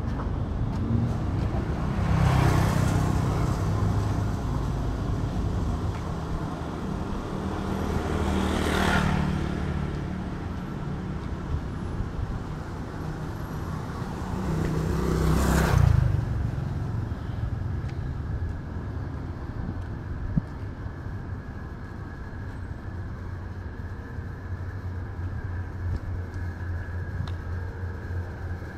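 Street traffic: three vehicles pass close by, several seconds apart, each swelling up and fading away over a steady low rumble of road traffic.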